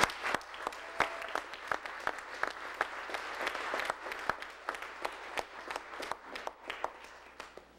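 Congregation applauding, many hands clapping with a few louder claps close by. The applause thins and dies away near the end.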